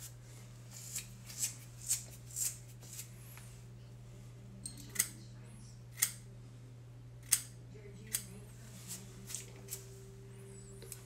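Small scissors snipping through beard and mustache hair: a dozen or so short, sharp snips at irregular intervals, often about a second apart. A steady low hum runs underneath.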